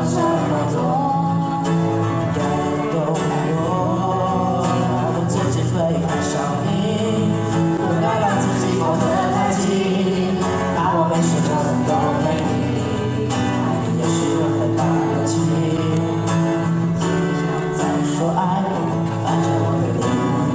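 Live acoustic band music: strummed acoustic guitars with a sung melody over a steady beat.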